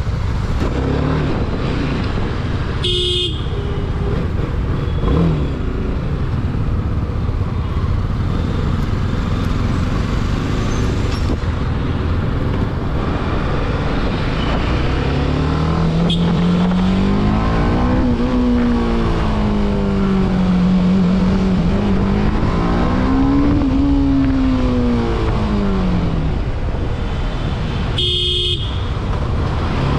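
BMW motorcycle engine running in city traffic. From about halfway its pitch rises and falls twice as the bike speeds up and eases off. A vehicle horn toots briefly a few seconds in and again near the end.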